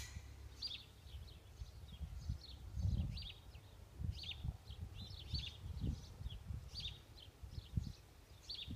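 Small birds chirping in short, repeated notes, with irregular low rumbles on the microphone, the loudest about three seconds in.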